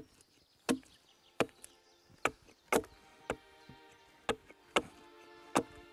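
Axe chopping into a split sweet chestnut board, paring it thinner: about eight sharp, separate chops at uneven spacing. Soft music comes in underneath from about halfway.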